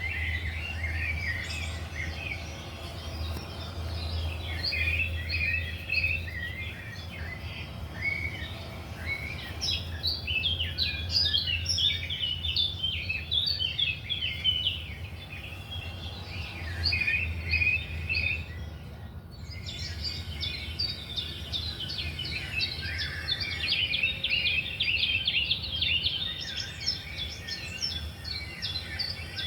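Many small birds chirping and twittering together in a dense, continuous chorus of short high calls, with a brief break about nineteen seconds in.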